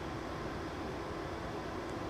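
Steady low hum and hiss of background machinery, with no changes or distinct events.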